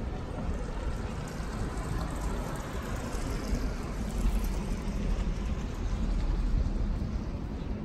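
Downtown street ambience: a steady low rumble and hiss of traffic, swelling in the middle as a vehicle passes.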